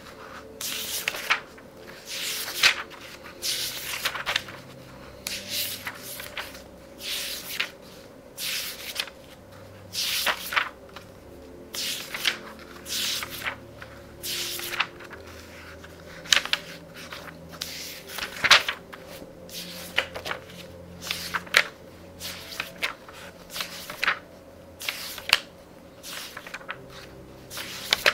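Pages of a very thick book being turned quickly, one crisp paper swish and flutter about every second. Faint soft music runs underneath.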